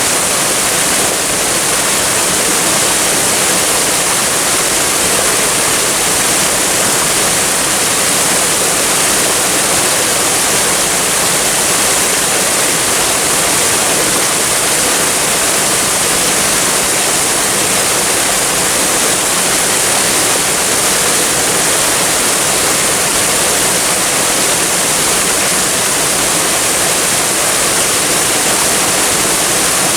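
Waterfall: a steady, even rush of falling water, heaviest in the high hiss, with no breaks or changes.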